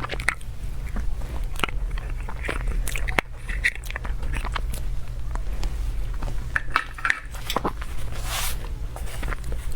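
Close-up eating sounds: scattered bites and chewing with small wet clicks, over a steady low hum.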